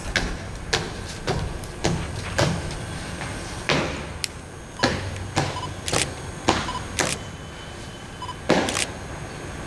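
A series of sharp clicks or knocks, roughly two a second and fairly regular, with a quick double click near the end.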